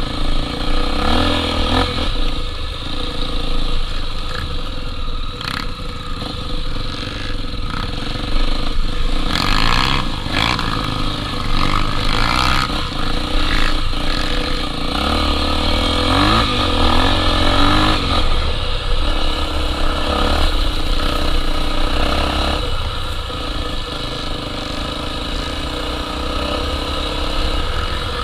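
Honda XR 250 Tornado trail motorcycle's single-cylinder four-stroke engine running under way on a dirt trail, its pitch rising and falling again and again as the throttle is opened and closed.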